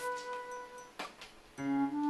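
Background music of held notes that moves to a new chord near the end, with a short click about a second in.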